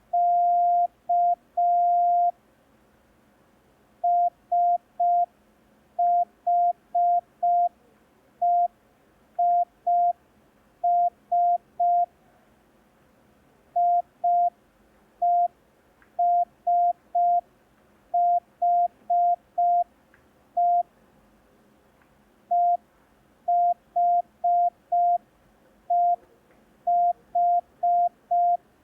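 Morse code practice tone, a steady mid-pitched beep keyed on and off. It opens with the last beeps of the CT start signal (dah-dit-dah-dit-dah) and then sends five-letter groups built only of dots, the letters E, I, S and H: SHEIS, IESHE and most of EHEHI, with clear gaps between letters and longer gaps between groups.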